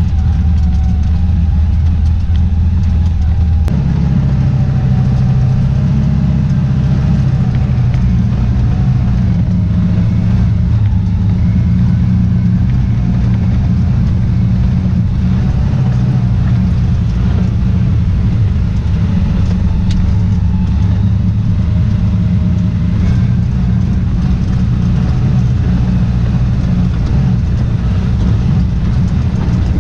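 Side-by-side utility vehicle's engine running under way on a dirt trail, heard from inside the cab. Its pitch steps up about four seconds in and then holds steady.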